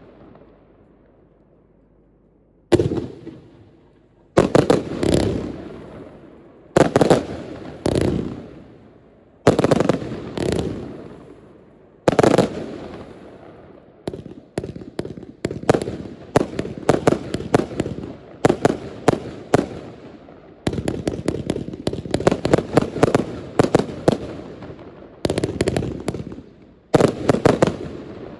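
Pryme Fireworks Optymum compound fireworks battery firing. After a short lull, clusters of sharp shots and bursts come every second or two, each dying away behind it. From about halfway on they turn into denser, rapid strings of bangs.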